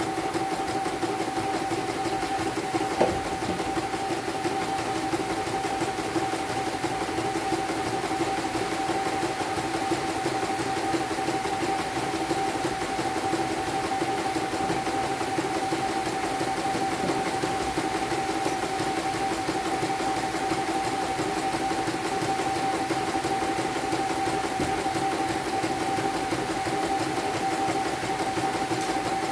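CNY computerized embroidery machine stitching a design: a steady run of rapid needle strokes with a constant hum. This is a test run after a broken part was replaced. There is one brief click about three seconds in.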